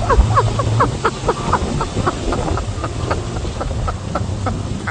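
Wind rumbling on the microphone under a rapid run of short, falling chirps, like birds calling, about four or five a second.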